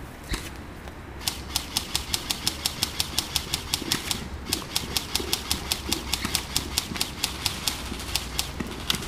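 Airsoft gun shots: one shot about a third of a second in, then a long, steady string of shots at about five a second, with a brief pause around four seconds in.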